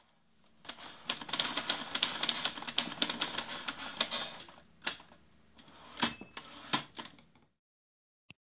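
Typewriter sound effect: a fast run of key clacks for about four seconds, then a few single strikes, one of them with a short bell-like ring about six seconds in.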